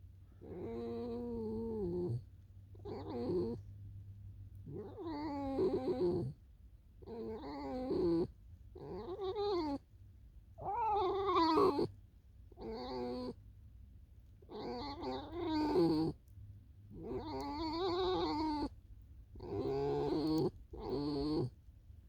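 A pet fox calling over and over: about eleven drawn-out, whining calls, each a second or so long and rising and falling in pitch, with short pauses between them.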